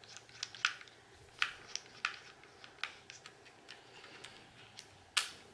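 Irregular light clicks and taps of hard plastic from a small toy drone being handled as the screw on its battery compartment door is undone and the door is worked loose. One sharper click comes near the end.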